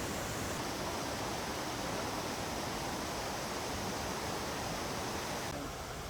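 Steady rushing roar of waterfalls, an even noise with no distinct events, shifting slightly in tone twice as shots change.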